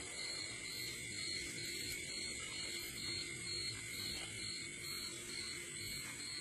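Night insects trilling steadily at several high pitches at once, one of them pulsing rapidly and evenly, over a low rustling background.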